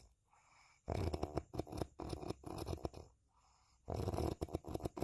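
Coarse, rattling snoring: one long snore of about two seconds starting about a second in, then a pause, and another snore starting about four seconds in.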